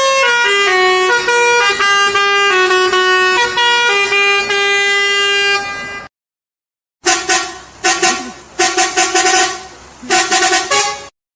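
Musical bus horn playing a stepped tune of held notes for about six seconds, then cutting off abruptly. After about a second of silence, a rapid run of short horn blasts follows for about four seconds.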